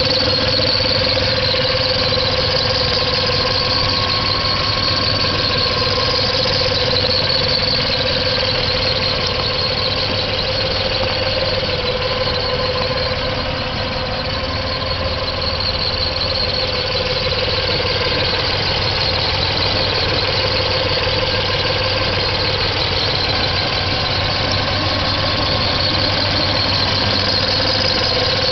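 1997 Nissan VQ-series V6 engine running with a steady high-pitched squeal over the engine rumble.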